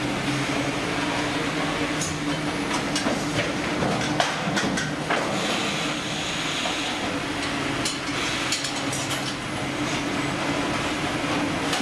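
Fish-processing line running: conveyor belts and machine motors humming steadily, with scattered clicks and knocks of fish and metal parts.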